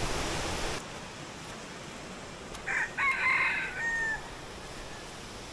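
A rooster crows once, about three seconds in: one drawn-out crow that ends in a falling tail. Before it, loud rushing stream water cuts off abruptly under a second in.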